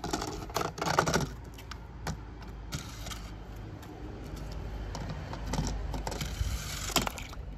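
Toy die-cast bulldozer pushed by hand over wooden blocks and a gritty glitter-covered board: clattering and scraping with many small clicks, loudest in the first second and again near the end.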